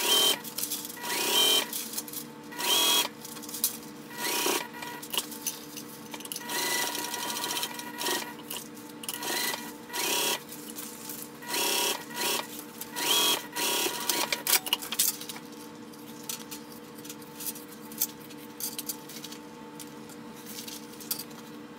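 Juki sewing machine running, stitching along the edge of a layered fabric pouch with a steady motor whine. Frequent brief louder bursts come through the first fifteen seconds or so, then it runs more evenly.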